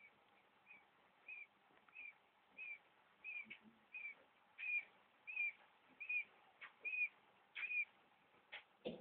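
Quail chicks peeping: a steady series of short, high peeps, about three every two seconds. There are a few faint clicks and a light knock near the end.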